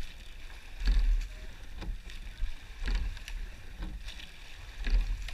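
Women's eight-oared rowing shell under way: the rush of water and oar strokes swelling three times, about two seconds apart, with short sharp clicks in between.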